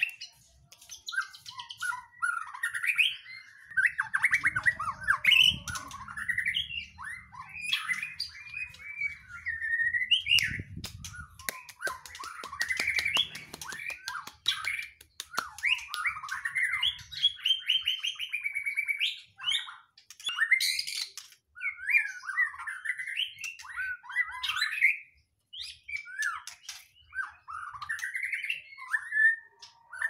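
Caged songbirds of the magpie-robin and shama kind, kept as song birds, singing long, varied phrases of rapid whistles and chattering notes, broken by short pauses.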